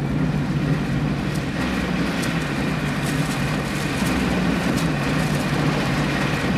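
Car engine and road noise heard from inside the cabin of an old car driving along a road: a steady low hum with a few light rattles or clicks.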